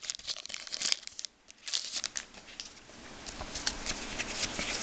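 Hockey trading cards being handled and flipped through by hand: a run of light clicks and slides of card stock, with a brief pause about a second in.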